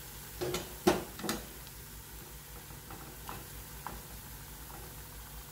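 Steel spoon stirring thick date halwa paste in a non-stick pan, knocking against the pan three times in quick succession about a second in, the middle knock loudest, then two fainter taps a couple of seconds later.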